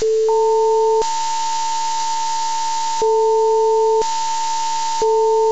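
Electronic emergency-alert tones of a mock Emergency Alert System broadcast. A steady high tone comes in about a third of a second in and holds. A lower tone sounds for about a second at a time, three times, over a steady buzzy noise.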